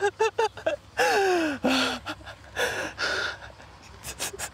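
A man gasping and panting for breath: a quick run of short voiced gasps, then a long falling exhale about a second in, followed by heavy breathing. He is out of breath and shaking with excitement after fighting and landing a big bass.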